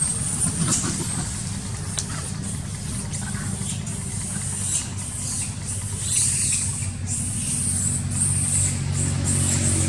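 Steady low rumble of a motor vehicle's engine running, with a faint hiss that comes and goes above it.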